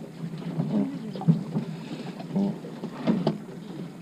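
Fishing boat engine running with a steady low hum, with a few sharp clicks or knocks and brief faint voices further along the boat.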